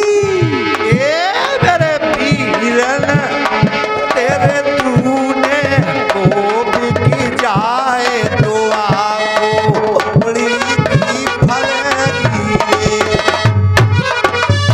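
Indian folk ensemble playing: a hand drum struck in a fast, steady rhythm under a wavering, gliding melody line.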